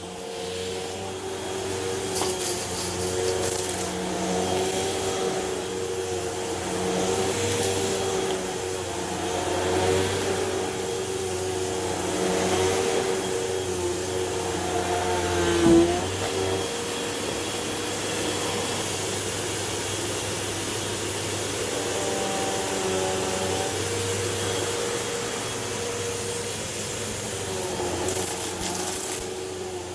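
Hoover Elite Rewind Plus upright vacuum cleaner running steadily, its motor hum and suction noise continuous, with one short louder sound about halfway through.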